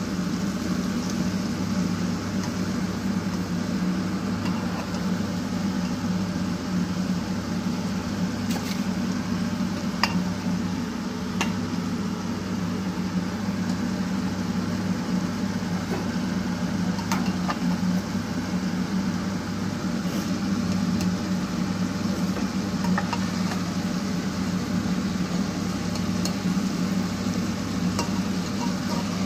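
Chicken frying in oil inside a closed pressure cooker over a lit gas burner: a steady sizzling hiss over a low hum, with a few faint clicks.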